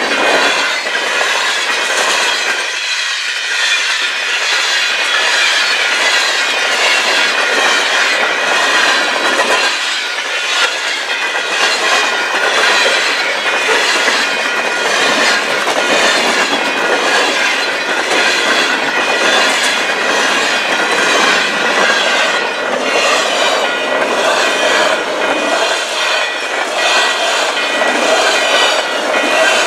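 Freight cars of a long mixed freight train rolling past close by: a steady rolling noise with wheels clicking rhythmically over the rail, about twice a second, and a steady high-pitched ringing.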